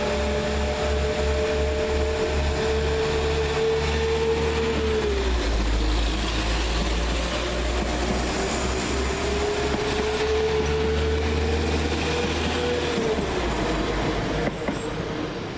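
Two coupled Class 172 Turbostar diesel multiple units pulling out under power, with a low diesel rumble and a steady whine. The whine drops in pitch about five seconds in, climbs again, and drops a second time near the end as the sound begins to fade.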